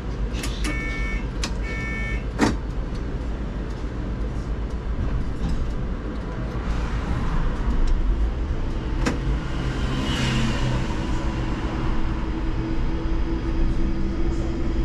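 Cab interior of an IMC Hess Lightram 19 DC trolleybus under way: steady rolling rumble of the vehicle. Near the start come two short beeps about a second apart, followed by a sharp click. A steady hum comes in about two-thirds of the way through.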